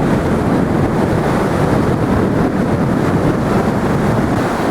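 Strong wind blowing over the microphone, a loud steady rumble, with ocean surf underneath.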